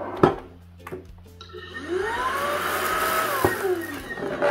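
Xiaomi cordless stick vacuum's motor switched on: its whine rises in pitch as it spins up, runs steadily for about a second and a half, then winds down and stops. The floor head's roller brush does not turn. A sharp click comes near the start.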